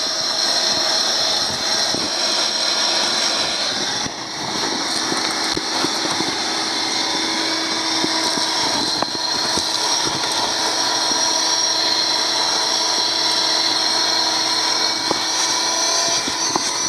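Vacuum cleaner running steadily with a high whine, its wide hose nozzle sucking dirt and debris off a boat floor. Small ticks of grit rattle up the hose.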